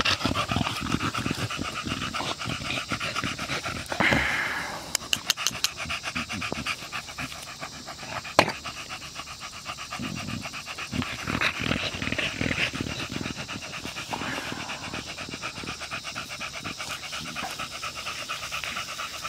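A pocket American Bully dog panting rapidly and steadily with its mouth open and tongue out. There is a single sharp click a little past eight seconds in.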